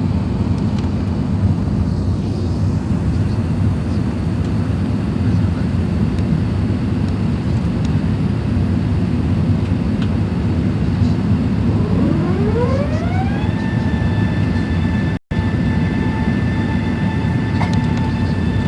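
Steady low rumble of an Airbus A380 cabin in motion. About twelve seconds in, a whine rises in pitch over a second or so and then holds steady. The sound briefly cuts out once near the end.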